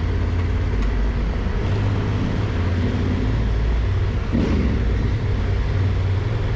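Adventure motorcycle running steadily under way on a gravel road, its engine and wind noise making a constant low rumble, with one short change in the sound about four and a half seconds in.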